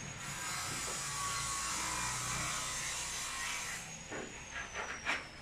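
A steady mechanical noise that stops about four seconds in, followed by a few light knocks.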